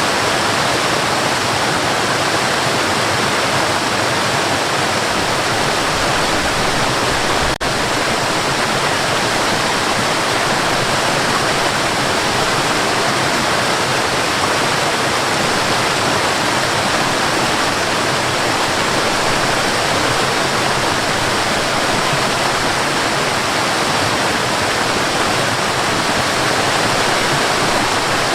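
Forest waterfall: water pouring and splashing in a steady, dense rush. About seven and a half seconds in there is a brief dropout, like a splice in the recording.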